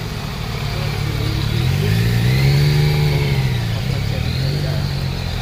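Race convoy vehicles (team cars and a motorcycle) driving uphill past on a wet road. Their engine notes swell and fade as they go by, loudest about halfway through with a second, smaller pass near the end, over a steady hiss of tyres on wet asphalt.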